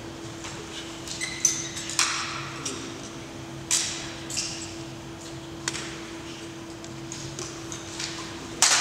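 Drill rifles of a color guard being handled in the manual of arms: sharp slaps and clacks of hands striking the rifles, a few single strikes spaced a second or more apart, each with a short echo from a large hall. A louder double knock comes near the end.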